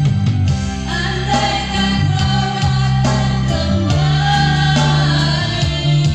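Song with a singing voice carrying a held, wavering melody over instrumental backing with a steady bass line.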